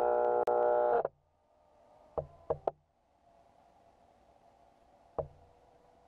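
Stepper motors of an Arduino-driven pan-and-tilt camera mount giving a steady whine with many overtones, which cuts off suddenly about a second in and leaves a faint hum. Three quick knocks follow around two seconds in, and a single knock comes near the end.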